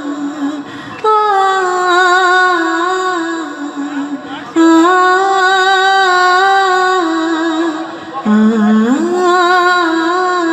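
A woman's voice singing long, wavering held notes without words, in three drawn-out phrases: a melodic stretch of a Bengali song.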